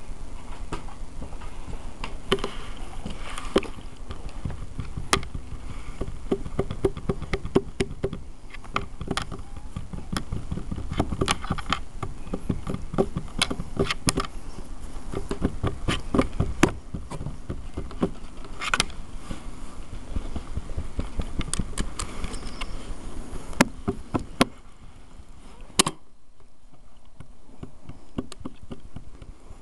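Dogs right against the camera, their fur and noses rubbing over the microphone: a steady low rumble with many sharp clicks, quieter over the last few seconds.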